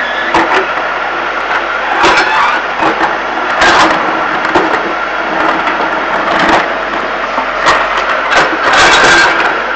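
Backhoe loader's diesel engine working hard with a steady whine. Several sudden loud knocks and scrapes come through it as the machine clears piled-up fill from a street.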